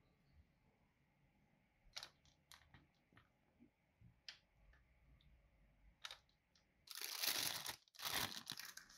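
Scattered light taps and scrapes as Italian meringue is spooned into a disposable plastic piping bag in a glass, then two loud bursts of the bag crinkling as it is gathered up, about seven and eight seconds in.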